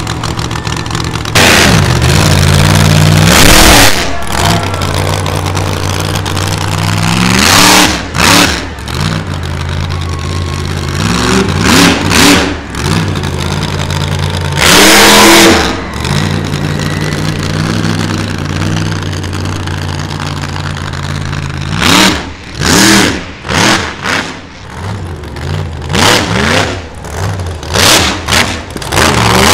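Monster truck engine revving hard in repeated bursts, settling back to a steady running note in between, with a run of short, quick throttle blips near the end.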